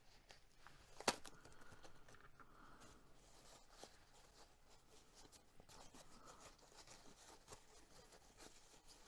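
Faint rustling and crinkling of white tissue paper as a wrapped item is unwrapped by hand, with one sharp click about a second in.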